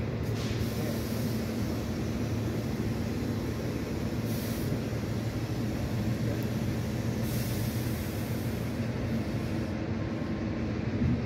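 Blue Pullman diesel train pulling slowly out past the platform, its engines giving a steady low drone. Brief hisses of air come about half a second in, at about four and a half seconds, and again from about seven to nine seconds.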